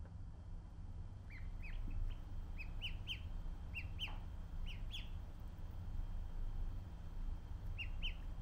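Domestic ducklings peeping: short, high peeps, about a dozen in quick runs through the first five seconds, then two more near the end.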